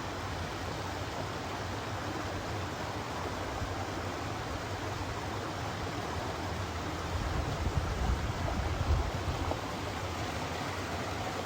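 Steady rushing of a flowing stream, with a low rumble that swells for about two seconds past the middle.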